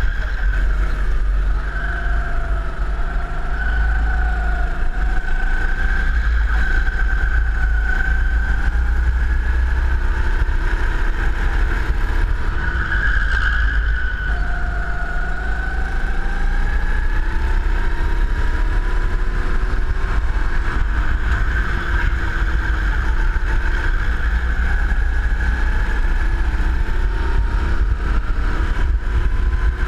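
Go-kart engine heard from the driver's seat, its pitch falling as it slows for corners and rising as it accelerates out; about midway it drops, then climbs steadily for several seconds. Heavy wind rumble on the onboard microphone runs underneath.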